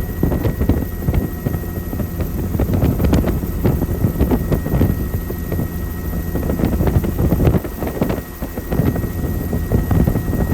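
Helicopter in flight heard from aboard: a steady, dense low rumble of rotor and engine, with gusty wind buffeting over it and a faint thin steady whine.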